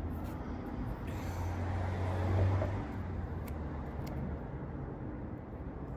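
A vehicle passing, its noise swelling and fading about halfway through, over a steady low hum, with a few small clicks.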